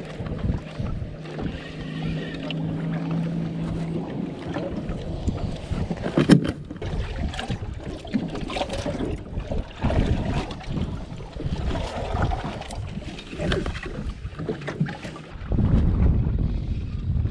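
Wind buffeting the microphone and water slapping against the hull of a small boat drifting at sea, with scattered knocks and one sharp knock about six seconds in. A low steady hum stops about four seconds in.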